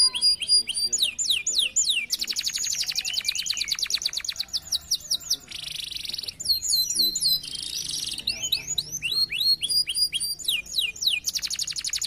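Canary singing continuously: phrases of repeated high, downward-sweeping whistled notes alternating with long, very fast rattling trills, one in the first half and another starting near the end.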